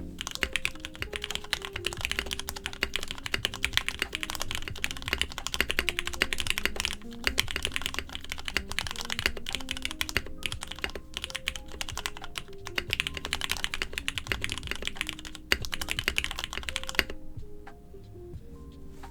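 Mechanical keyboard with Cherry MX2A Orange switches being typed on continuously in a fast flurry of keystrokes, stopping a couple of seconds before the end.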